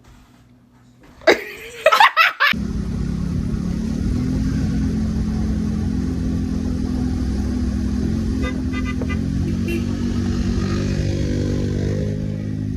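A short burst of loud, high, sliding cries about a second in. Then a motor vehicle's engine starts running steadily, its pitch rising slightly near the end.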